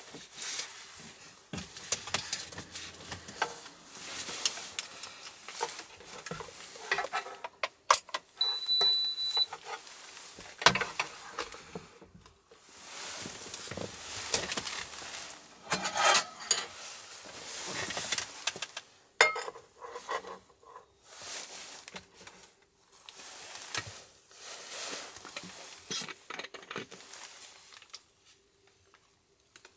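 Close handling sounds: a down jacket rustling and scattered clicks and knocks as a cable and a portable induction cooktop are handled. One short, high electronic beep sounds about eight or nine seconds in.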